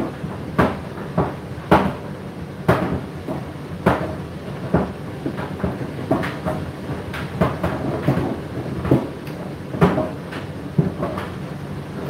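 Laundry tumbling in a machine drum: irregular thuds about once a second over a steady low running hum.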